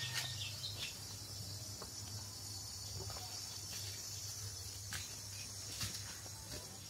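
A steady high-pitched chorus of insects, over a low steady hum, with a few faint scattered ticks.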